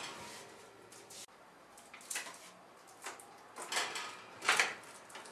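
Handling noises at an open built-in kitchen oven as a plastic water bottle is put in to warm. A sharp click about a second in, then four short knocks and rustles.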